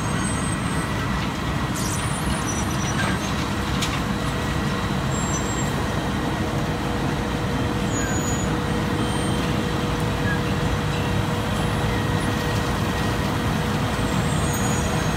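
Road milling machine and a heavy dump truck working together, with the milling machine's conveyor loading the truck as it creeps alongside. It is a steady, heavy diesel drone with a constant high tone running through it.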